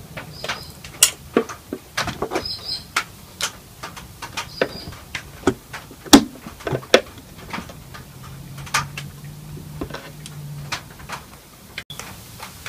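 Scattered light clicks and knocks of small screws being taken out and a speaker baffle being lifted out of a Bakelite radio cabinet, about a dozen at uneven intervals.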